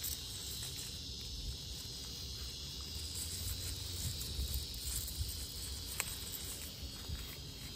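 Steady high chirring of insects, even and unbroken, over a low rumble, with faint rustling of pepper-plant leaves as peppers are picked.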